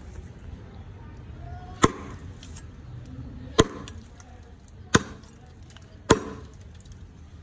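Steel cleaver chopping into a tree limb: four sharp strikes of the blade into the wood, about a second or more apart.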